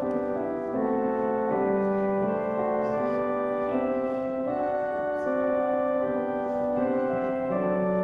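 Instrumental music of slow, held chords whose notes change about once a second.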